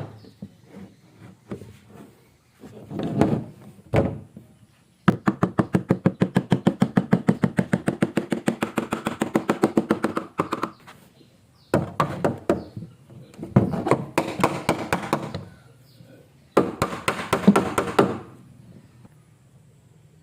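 Hand woodworking on timber: a few separate knocks, then a fast, even run of about eight sharp taps a second lasting about five seconds, then three short bursts of rasping strokes.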